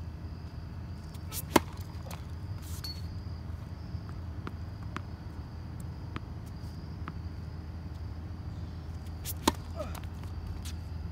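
Tennis racket striking the ball on a serve, a sharp single hit about one and a half seconds in and a second serve hit near the end, over a steady low background hum.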